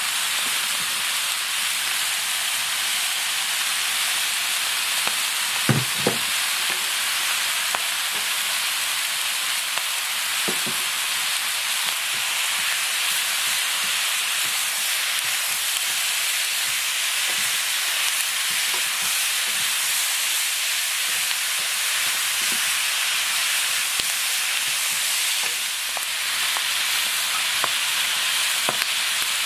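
Webfoot octopus, pork belly and vegetables sizzling steadily as they stir-fry in a pan over high heat. A utensil knocks against the pan a few times, twice close together about six seconds in.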